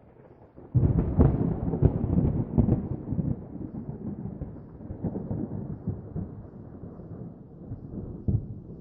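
Thunder: a sudden crackling clap about a second in, then a long rolling rumble that slowly fades, with another sharp crack near the end.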